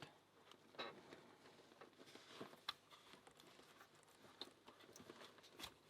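Faint, irregular small clicks and light taps of a Kwikset SmartKey lock's small parts being handled and fitted back together by hand.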